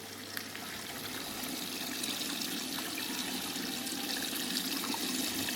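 Water rushing into a hardmount washer extractor's drum through its inlet as the started wash cycle fills: a steady hiss that grows slightly louder.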